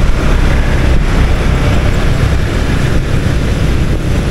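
Steady rumble of riding a motorbike through traffic: wind buffeting the microphone over the engine and the surrounding motorbikes.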